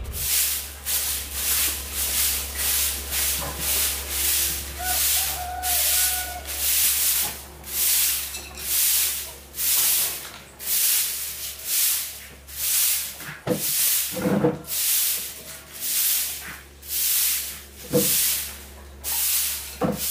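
Broom sweeping a dusty concrete floor, in steady, rhythmic swishing strokes, a little more than one a second, with a few short knocks in the second half.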